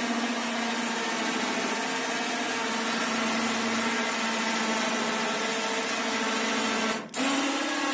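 Electric steering servo motor on a homemade buggy's rear steering axle running under test: a steady motor hum and whine, with a brief break about seven seconds in.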